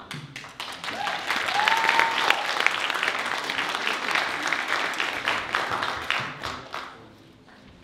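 An audience applauding. The clapping builds over the first second, holds, then dies away near the end.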